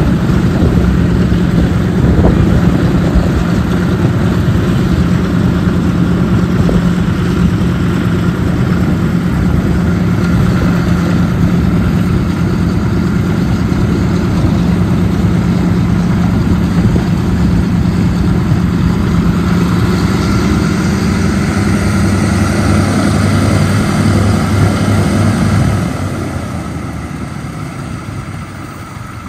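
Twin Pratt & Whitney R-1830 radial engines of a 1942 Douglas C-47A (DC-3) running with the propellers turning, a loud steady drone. Near the end the engine sound drops away sharply and fades.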